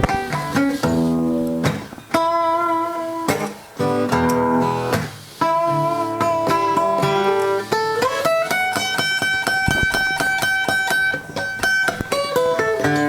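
Background music: the instrumental guitar break of a blues song, plucked notes with one note that slides up about eight seconds in and is held.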